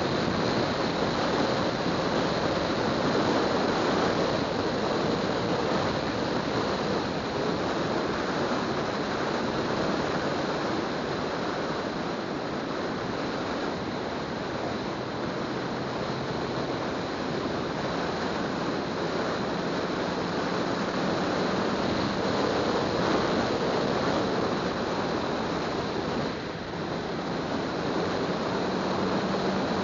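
Steady rush of wind and tyre noise from a car driving on a paved road, with a faint engine drone underneath that rises slightly in pitch later on; the noise dips briefly near the end.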